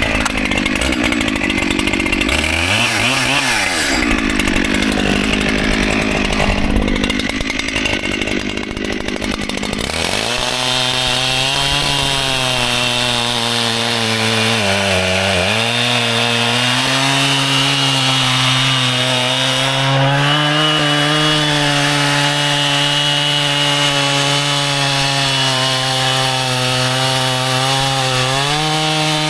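Echo CS-7310P two-stroke chainsaw running under throttle, most likely cutting wood. It sounds rough and noisy for the first third, then settles into a steady engine note that sags briefly about halfway and picks up again near the end.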